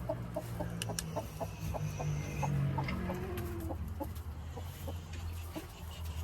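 Hen clucking, a rapid run of short clucks at about four to five a second that thins out after about three seconds, over a steady low hum.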